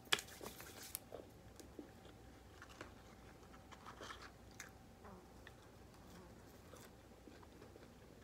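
Close-miked eating sounds: a person chewing a mouthful of cheeseburger and french fries, with small wet mouth clicks and smacks scattered throughout. The loudest click comes just after the start.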